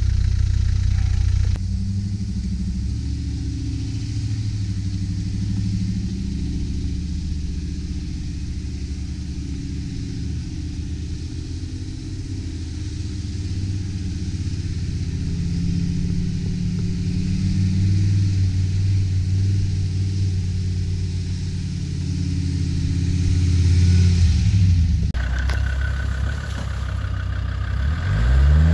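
Off-road 4x4 engines running at low speed, the engine note rising and falling with the throttle. The sound changes suddenly about two seconds in and again a few seconds before the end, where the pitch falls and then climbs as a vehicle revs.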